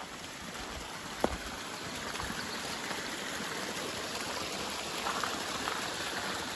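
Running stream: a steady rush of flowing water that swells in and fades away again, with one sharp click about a second in.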